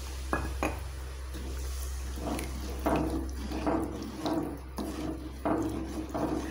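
Wooden spatula stirring water into thick curry masala in a metal kadai: a couple of knocks near the start, then repeated sloshing, scraping strokes about one to two a second.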